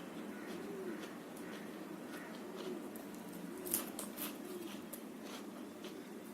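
A pigeon cooing over and over, each coo a low note rising and falling, about once a second. Short sharp clicks of someone eating cluster a little past the middle.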